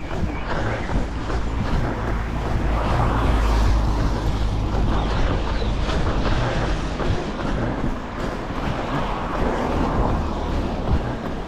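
Traffic on a wet road heard from the pavement: tyres hissing over the wet surface, loudest about three to four seconds in as a vehicle goes by, over a steady low rumble of wind on the microphone of a running camera.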